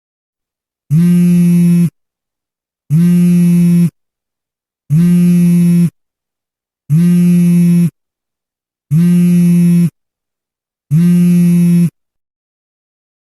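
A meme sound effect: the same steady, flat-pitched tone rich in overtones, about one second long, played six times two seconds apart with silence between.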